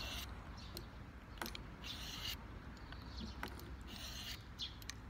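Pocket-knife blade being drawn across a Victorinox sharpener to set (hone) the edge: three short, faint scraping strokes about two seconds apart, with a few light clicks in between.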